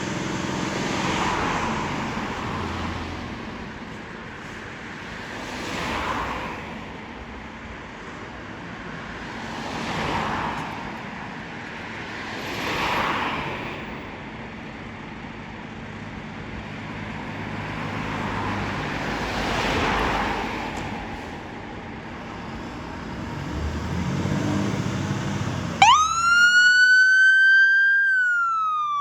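Fire engine's diesel engine running, with broad whooshing swells every few seconds like passing traffic. About three seconds before the end, a siren starts: a wail that rises sharply, climbs a little more, then begins to fall.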